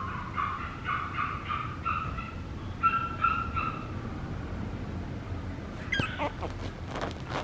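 Papillon puppy whimpering in a quick run of short, high, steady-pitched cries that stop about three and a half seconds in. A few sharp clicks and knocks follow near the end.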